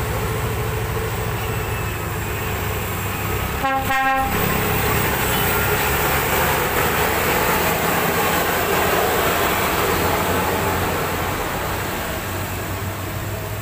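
Heavy diesel truck engine running, one short horn blast about four seconds in, then louder road and engine noise as a truck goes by.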